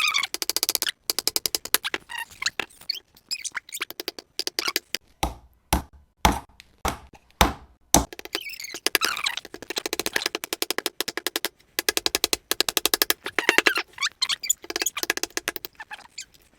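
Hammer blows driving nails into the wooden birdhouse, irregular at first, then a run of strikes about every half second, among rapid clicking and tapping.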